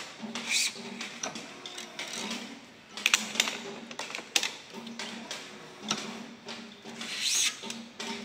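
Badminton string (Gosen Ryzonic 65) being woven and pulled through a racket's main strings on a stringing machine: short rasping swishes of string sliding over string, mixed with light ticks and clicks. The busiest cluster of clicks comes around three seconds in, and another long pull near the end.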